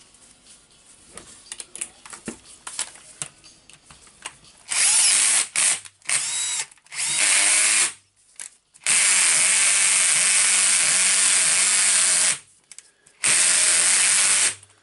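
Cordless drill-driver running in short bursts, driving screws into the rotary hammer's motor housing cover; the longest run lasts a few seconds. Light clicks of parts and screws being handled come before the first burst.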